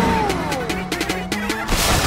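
Cartoon background music with a falling glide about a quarter of a second in, and a sudden rush of noise near the end.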